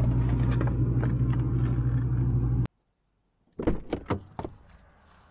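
Loud, steady electrical hum beside a refrigerated glass-door drinks cooler, cutting off abruptly about halfway through. After a moment of silence come several knocks and thumps as a car door is opened and someone gets into the car.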